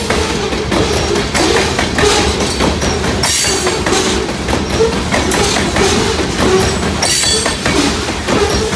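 Loaded grain train's freight cars rolling past, a steady rumble with wheels clacking over rail joints in a slow repeating rhythm, about every three and a half seconds.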